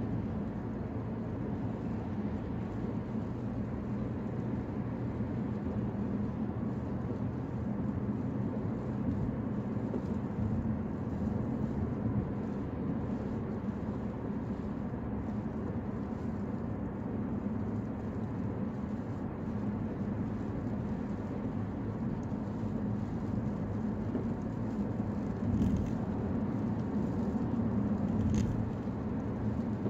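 Steady road noise of a car at highway speed heard from inside the cabin: a low, even hum of tyres and engine. Two faint brief sounds come near the end.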